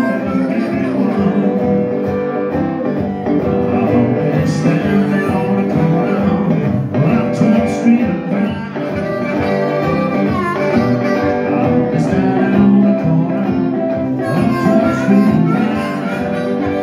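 Live blues band playing: strummed acoustic guitar and electric guitar with harmonica over a steady rhythm.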